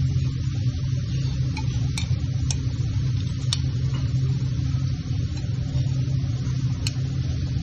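Steady low hum of kitchen equipment running. A few light clicks of china sound as caramelized orange slices are set from a small dish onto a plate.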